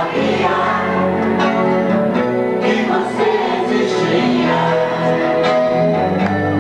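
Live Jovem Guarda rock band playing: electric guitars, bass and drums with singing.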